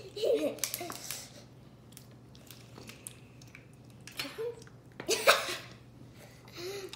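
Girls giggling and laughing in short bursts, with quiet stretches between. The loudest is a breathy burst of laughter about five seconds in.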